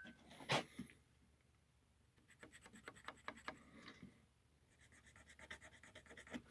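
Faint, light scratching and rapid ticking from handling, measuring and marking a pallet board, with a soft knock about half a second in.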